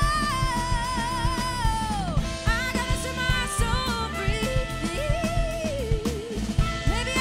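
Funk and soul band playing live: a woman sings lead over drums, bass and guitar. Her held note with vibrato slides down about two seconds in, and shorter sung phrases follow.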